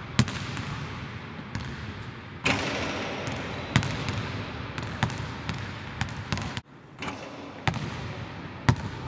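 Basketball bouncing on a hardwood court in a large empty arena: sharp thumps that echo, roughly one every second or so, with one louder hit about two and a half seconds in. The sound drops out for a moment about two thirds of the way through.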